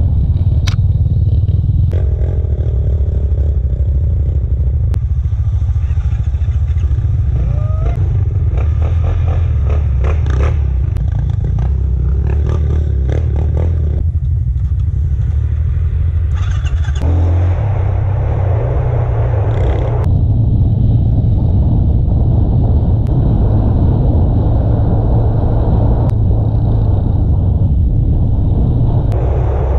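Four-wheeler (ATV) engines running while riding a rough dirt trail, heard from an onboard camera as a constant low rumble with scattered knocks and clatter from the bumps. The sound shifts abruptly several times.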